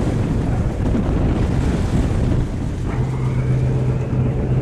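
Wind buffeting the microphone over the rush of water around a boat. About three seconds in, a steady low engine hum comes in.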